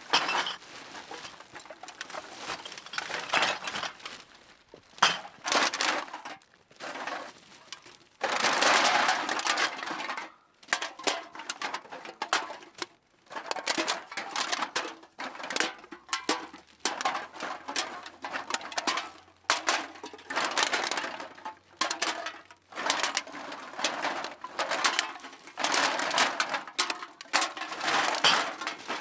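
Cans being dropped into a bag, clattering and rattling against one another in repeated bursts of impacts with short pauses between them, the longest and loudest burst about eight to ten seconds in.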